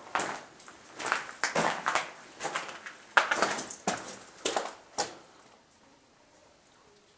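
Footsteps walking on the floor of an anthracite coal mine tunnel, a step roughly every half second, stopping about five seconds in.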